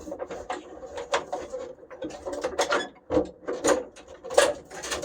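Irregular knocks, clicks and scraping of dash parts being wrestled loose inside a truck cab as a snagged part is worked free.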